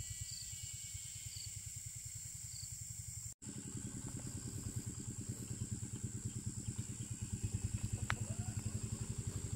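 A small engine running steadily at idle, a rapid, even throb. After a sudden break a little over three seconds in, it sounds closer and louder.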